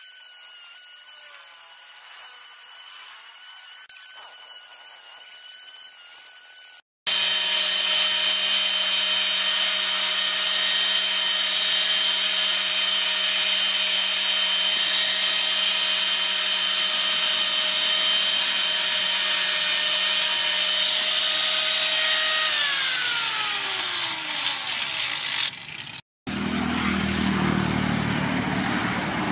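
Angle grinder with a sanding pad running against a wooden axe handle, a steady whine. It gets louder after a cut about seven seconds in. A few seconds before the end its pitch falls as it winds down. A low, even rumble follows in the last few seconds.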